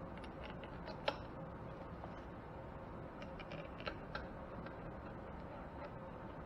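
Scattered light metallic clicks as steel bolts are picked up and set into the bolt holes of a Cub Cadet hydrostatic transmission's cover, with one sharper click about a second in.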